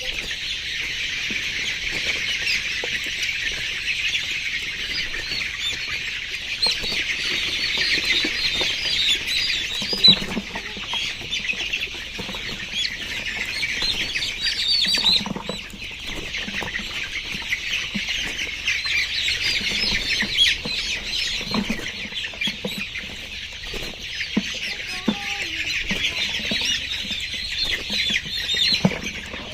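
A flock of layer chicks peeping all together, a dense, continuous chorus of high chirps. A few soft knocks come through it, the loudest about ten seconds in.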